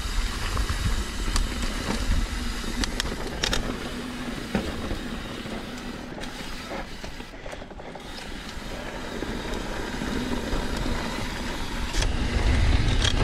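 Mountain bike rolling fast down a dirt trail: tyres running over dirt and small stones, the bike rattling over bumps with scattered sharp clicks, under a low rumble of wind on the microphone. It grows louder near the end.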